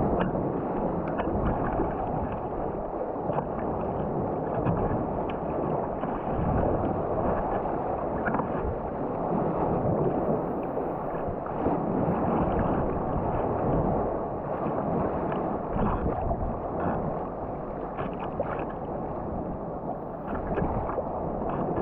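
Sea water sloshing and gurgling around a sea kayak as it is paddled and braced in rolling waves, with small paddle splashes now and then.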